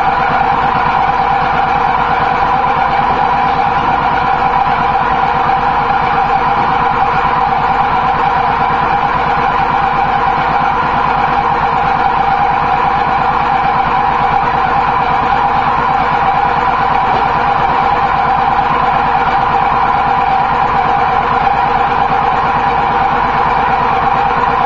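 A machine running steadily: an even motor drone with a fast, regular pulse underneath that does not change in pitch or level.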